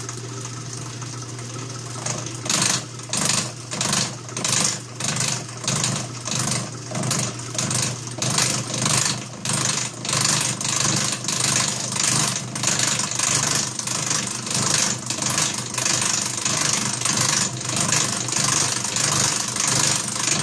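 Atlas horizontal milling machine running with a steady motor hum. About two seconds in, the cutter starts slotting the stainless steel piston valve, and the cutting pulses evenly about twice a second.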